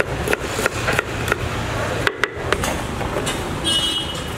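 Knife chopping potatoes on a wooden board: sharp knocks at about three a second, then a few more spaced irregularly just after the middle.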